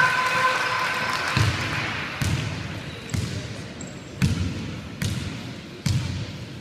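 Basketball dribbled on a wooden gym floor: a bounce roughly every second, echoing in the large hall.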